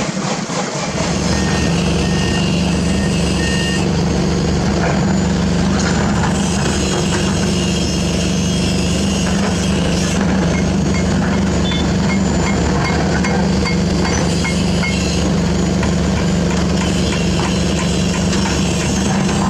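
Heavy diesel excavator engine running steadily, with a back-up alarm beeping over it. There are four beeps about a second and a half in, then a faster run of about a dozen beeps starting around ten seconds in.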